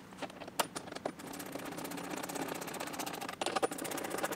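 Hand screwdriver driving a washered screw through a plastic mud flap into a fender insert. A few single clicks come first, then from about a second in a fast, even run of small ratchet clicks as the driver is worked back and forth.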